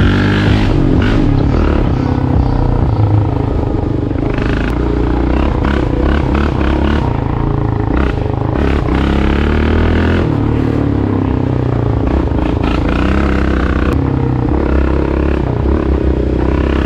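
Yamaha Raptor 700R ATV's single-cylinder four-stroke engine running while ridden, its pitch rising and falling with the throttle.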